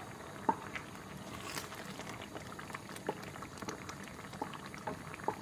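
Tomato and garlic sauce bubbling in a pot with small irregular pops. It is still watery, partway through being boiled down to thicken.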